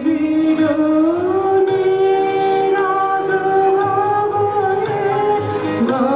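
A song with a singer holding long notes that slide up and down between pitches, over instrumental accompaniment with a light low beat.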